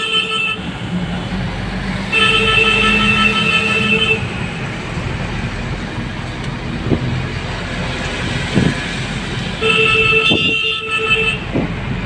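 A car horn sounding in long steady blasts of about two seconds each: one ends just as the sound begins, another comes about two seconds in, and a third comes near the end. Underneath, the steady road and engine noise of a car driving in traffic, heard from inside the cabin, with a few short thumps late on.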